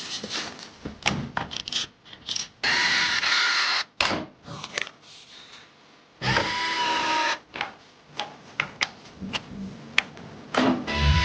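Computer parts being handled and fitted together: a run of sharp clicks and light knocks, with two steady noisy whirs of a bit over a second each, about three seconds in and again about six seconds in.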